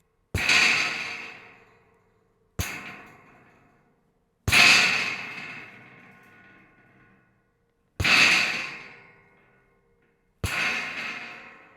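Pieces of metal rattling in five separate bursts, each starting sharply and dying away over a second or two, with a faint ringing left in the tails.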